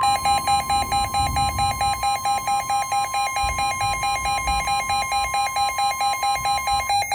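NOAA Weather Radio warning alarm: a steady 1050 Hz tone, overlaid by a weather radio's own rapid pulsing alarm beep at about five or six beeps a second. Both cut off together near the end, the signal that a warning broadcast is about to follow.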